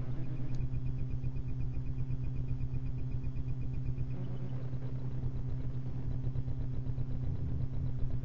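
Steady low hum under the recording, with a faint high pulsing tone that stops about four seconds in.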